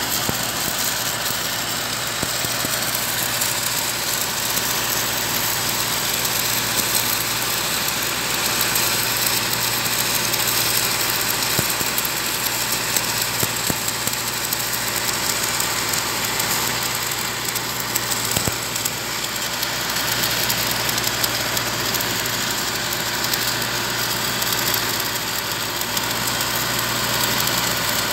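Two E6010 stick-welding arcs on a steel pipe, crackling and hissing steadily without a break, over the steady drone of a running engine.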